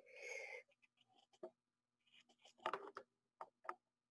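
Near silence, with a short breath at the start, then a few faint small clicks and rubs from handling the wire under the microscope.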